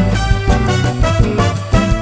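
Upbeat background music with a steady beat, in a salsa-like Latin style.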